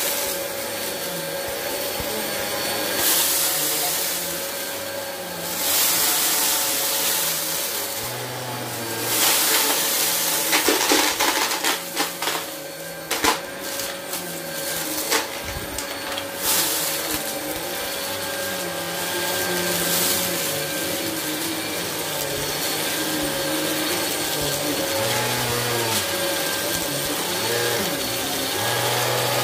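PowerForce bagless upright vacuum cleaner running steadily with a constant motor whine as its brushroll is pushed back and forth over a carpet mat strewn with confetti and grit. Debris crackles and rattles up into the canister, most densely between about 9 and 16 seconds in.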